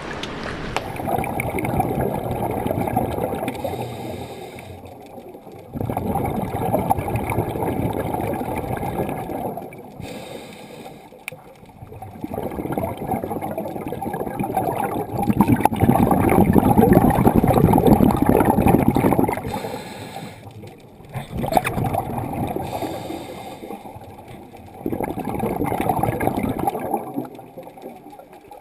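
Water gurgling and sloshing in surges of a few seconds, each swelling and fading again, with the loudest stretch about halfway through.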